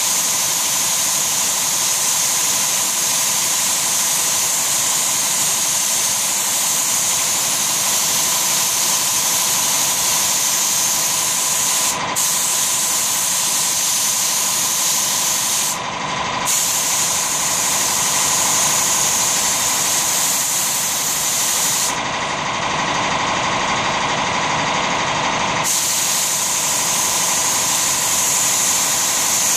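Siphon-feed compressed-air spray gun hissing steadily as it sprays wood finish. The hiss lets up briefly about twelve and sixteen seconds in and for a few seconds from about twenty-two seconds in, while a lower steady air noise carries on underneath.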